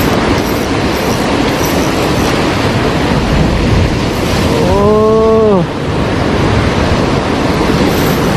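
Heavy surf breaking against the shore, a loud steady rush of water and wind noise. About five seconds in, a short drawn-out voice-like tone rises and falls over it.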